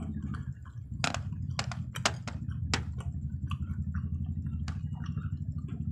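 Crunching of hard-shelled peanut M&M candies being chewed and wooden chopsticks clicking against the candies on the plate. There are a handful of sharp, irregular clicks, mostly in the first three seconds, over a steady low hum.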